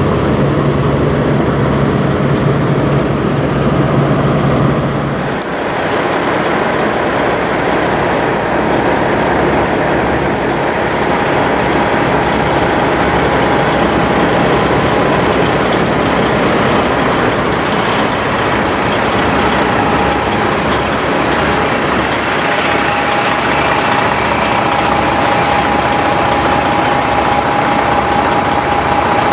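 Diesel semi-truck engines idling: a steady rumble with a low, even pulsing. The sound changes abruptly about five seconds in, and a steady high whine sits over it from about ten seconds in.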